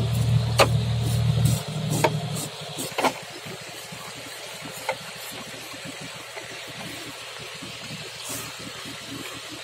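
A low engine hum runs for the first second and a half, then cuts out. After it come a few sharp clicks and scrapes of a knife working the scales off a large needlefish (mural), over a steady outdoor hiss.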